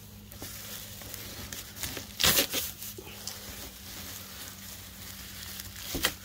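Weeds being pulled up by hand: irregular rustling and tearing of leaves and stems, with a louder burst of it a little over two seconds in. A faint steady low hum runs underneath.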